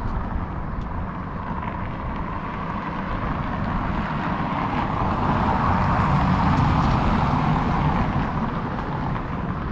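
Steady outdoor rumble of wind buffeting the microphone over road traffic. A passing vehicle swells louder in the middle and then eases off.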